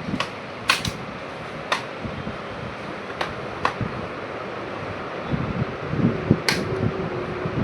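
Sharp plastic clicks and light knocks as a laptop's bottom cover is pressed and snapped back into place, about six clicks spread irregularly, over a steady fan-like hiss.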